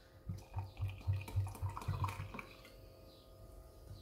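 Water poured from a glass vessel into a plastic blender beaker, pulsing about four times a second for the first two seconds, then trailing off faintly.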